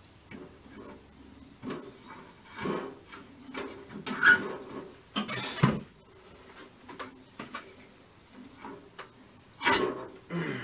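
Irregular clinks, knocks and scrapes of metal tools and parts being handled on a Volkswagen air-cooled engine during hands-on work, with the loudest knocks a little past four seconds, around five and a half seconds and near the end.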